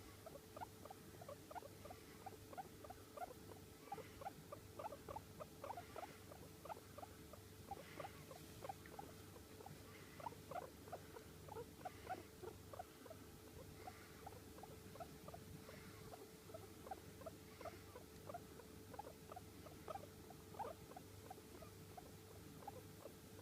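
Long-haired Sheltie guinea pig making soft, quiet squeaks, a steady string of short chirps several times a second.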